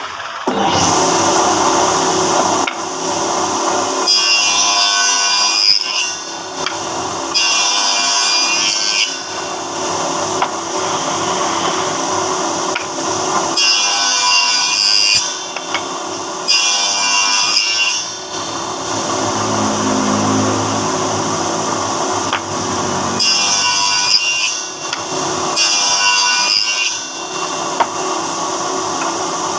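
Woodworking power machine running steadily and cutting into wood again and again, to shape tenons for a wooden door. There are about seven louder cutting passes of one to two seconds each, with the machine running between them.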